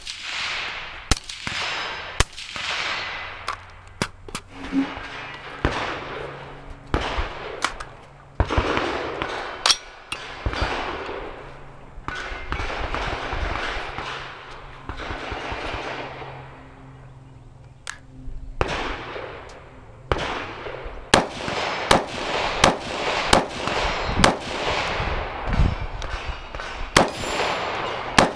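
AR-style rifle firing a long string of single semi-automatic shots, each sharp crack followed by a long echo fading off. The shots come about one a second at first and speed up to roughly one every two-thirds of a second in the last third.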